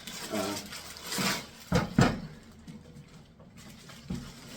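Crinkling plastic bag and several sharp knocks and clunks as a heavy metal electric meat grinder is handled and moved about.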